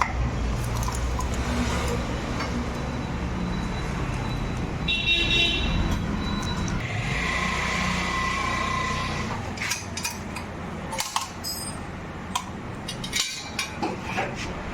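Road traffic with an engine rumble. A vehicle horn sounds briefly about five seconds in. Later come several sharp clicks and knocks.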